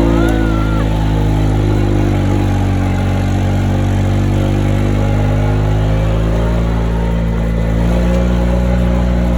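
ATV engine running at a steady pace under way, its note holding even.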